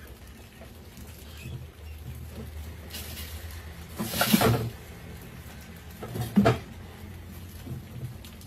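Mice scrabbling about a glass tank trap with a wire-mesh lid. About four seconds in there is a loud clatter as the trap's hinged wooden bait platform tips and spills grain into the tank, and a second clatter comes about two seconds later. A low hum runs underneath.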